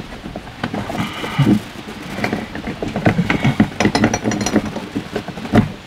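Irregular metallic clicks, knocks and clinks of hand tools and steel cable at the pulley bracket of a BAL Accu-Slide room's cable system. There are short ringing clinks about a second in and again about four seconds in.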